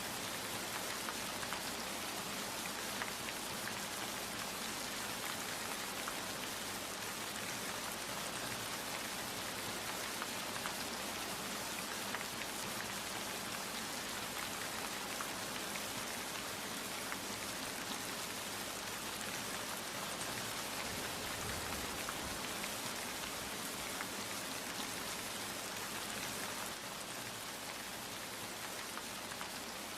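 Steady rain falling, with many separate drops ticking on a surface. It eases slightly near the end.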